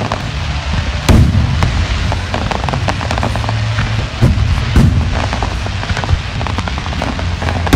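Aerial fireworks shells bursting overhead: dense crackling throughout, with sharp loud bangs about a second in, near five seconds and at the end, over a steady low hum.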